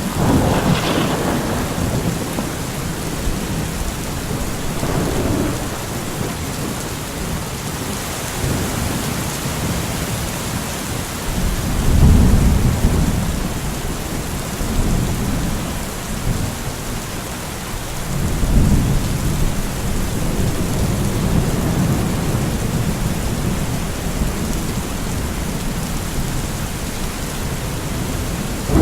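Steady heavy rain hissing, with thunder rumbling low several times: just at the start, a loud roll about twelve seconds in, and another about eighteen seconds in.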